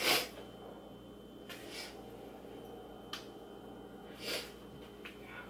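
Faint handling sounds of Brussels sprouts and their plastic bag on a cutting board: a couple of soft rustles, the louder one a little after four seconds, and a light click or two.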